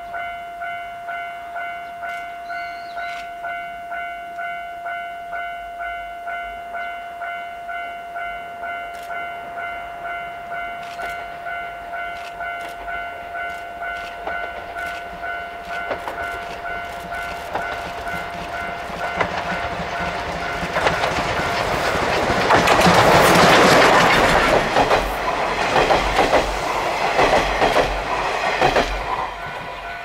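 A level-crossing warning bell rings steadily at about one and a half strokes a second while a steam locomotive and its train draw near. The locomotive's exhaust beats and wheel clatter grow from about halfway, are loudest as it passes close by about three-quarters of the way in, then fade, and the crossing bell comes through again near the end.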